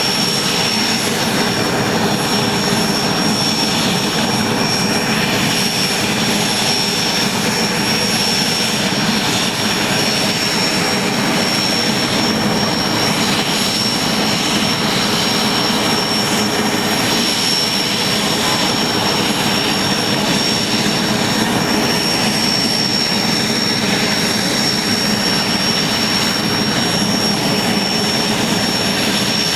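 IAR 330 Puma helicopter's twin Turbomeca Turmo turboshaft engines running steadily: a loud, even roar with a high, unchanging turbine whine over it.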